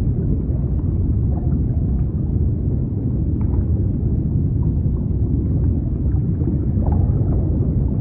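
Underwater ambience: a steady, deep, muffled rumble of water, with a few faint short tones rising out of it now and then.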